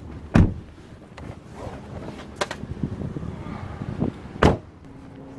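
Car rear door being opened and a passenger climbing out: a loud thump about half a second in, scattered clicks and rustling, then another loud thump near the end, the door being shut.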